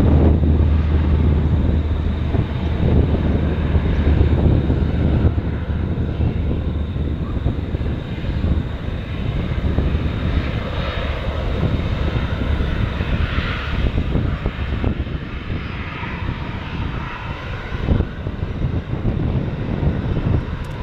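QantasLink Bombardier Dash 8-300 twin turboprop at takeoff power, its engines and propellers running loud and continuous through the takeoff roll and lift-off. A deep drone is strongest in the first few seconds and thins out later, with higher engine tones swelling and fading in the middle.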